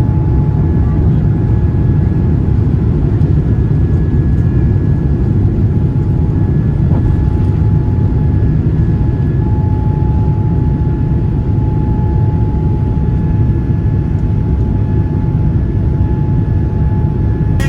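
Cabin noise of a Boeing 787-9 Dreamliner climbing after takeoff: a steady low roar of engines and airflow, with a faint steady whine over it.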